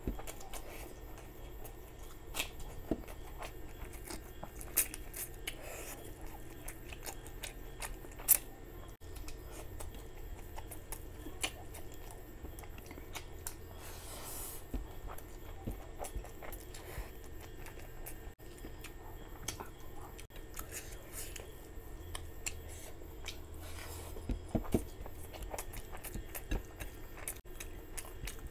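Close-miked eating sounds of a man chewing mouthfuls of basmati rice and curry eaten by hand, with many short, sharp mouth clicks scattered throughout, two of them louder about five and eight seconds in.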